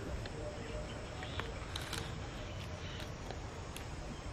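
A cat feeding in dry leaf litter: a few sharp crackles and crunches, clustered around two seconds in and again near three to four seconds, over a steady low outdoor rumble.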